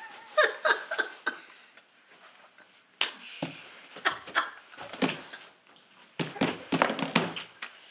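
A man laughing hard in repeated breathy bursts.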